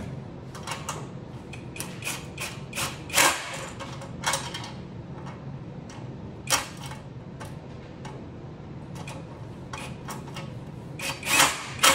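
Scattered clicks and knocks of metal hardware: a nut driver and flathead screwdriver working bolts and lock nuts on an aluminum sluice-box bracket. There is a sharper knock about three seconds in and a cluster of louder clicks near the end.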